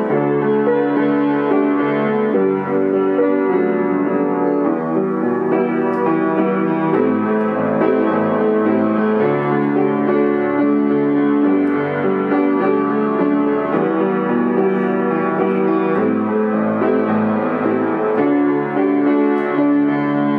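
Grand piano played with both hands: full sustained chords over a bass line that moves to a new note about every two seconds.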